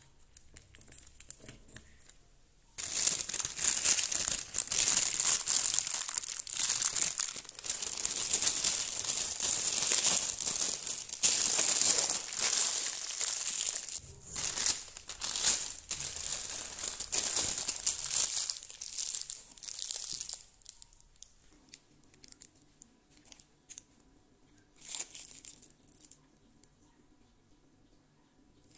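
Thin plastic piping bag crinkling and rustling as it is handled and a metal nozzle is pushed into it, loud and continuous from about three seconds in and stopping about two-thirds of the way through. A brief rustle follows later.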